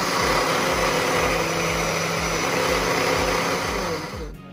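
Countertop electric blender running at full speed, mixing corn cake batter with the baking powder just added; its steady motor and churning noise cut off near the end.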